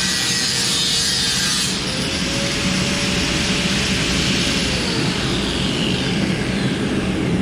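Power tool, most likely an angle grinder with a cut-off disc, cutting a relief slot in sheet metal: a steady hiss with a motor whine that rises slightly and then sags near the end.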